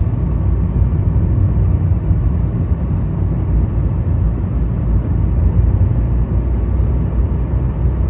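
Steady low rumble of a vehicle driving along a road: engine and tyre noise at an even pace.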